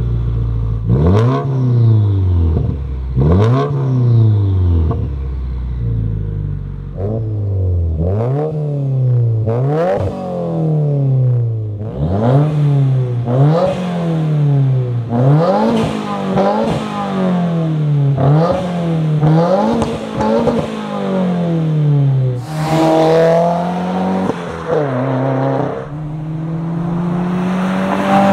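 2018 Subaru WRX's turbocharged FA20 flat-four, fitted with an Invidia R400 cat-back exhaust, being revved over and over: each rev rises and falls in pitch, roughly every one to two seconds. Near the end it gives a longer, steadier climb with the car under way.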